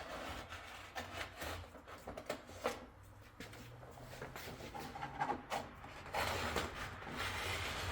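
Paper backing of a vinyl window graphic rustling and crinkling as it is handled and peeled: a run of irregular small crackles and rubs, with a steadier hiss building about six seconds in.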